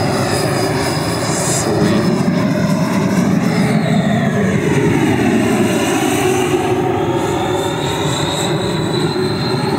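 JETFAN-120 PRO electric ducted fan with its HET 800-73 motor, in a flying RC jet model, running steadily with a loud rushing whoosh. The sound takes on a phasing sweep that dips and rises again as the jet passes.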